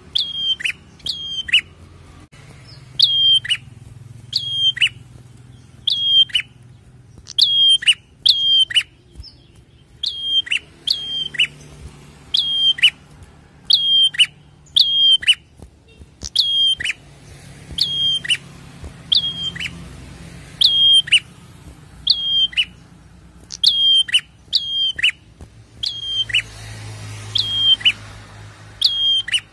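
A caged prenjak singing: loud, sharp chirps repeated in quick pairs and triples, each note dropping in pitch at its end, with short pauses between the groups.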